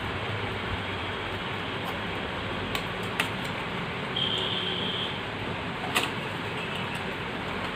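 Steady background hiss and rumble, broken by a few sharp clicks and a brief high beep about four seconds in.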